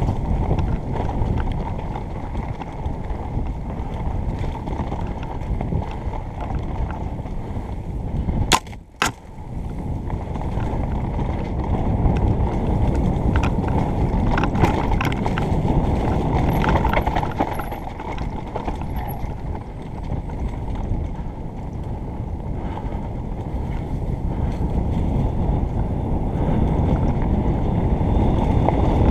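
Mountain bike descending a forest dirt trail: steady wind noise on the helmet camera's microphone and tyre rumble, with scattered rattles and knocks from the bike over the rough ground. About eight and a half seconds in there are two sharp clicks and a brief dip in the noise.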